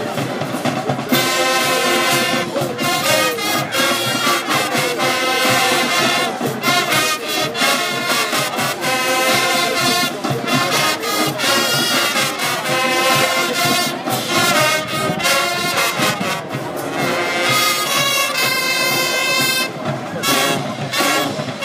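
High school marching band playing: trumpets and trombones carry the tune over drums, loud and full.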